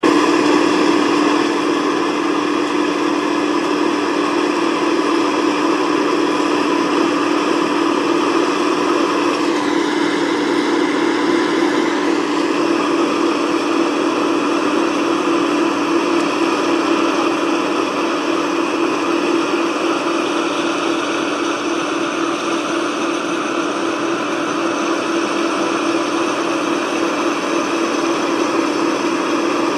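Tracked combine harvester running steadily as it cuts and threshes rice, engine and threshing machinery giving a constant hum with a higher whine over it. The higher whine dips briefly and recovers about ten seconds in.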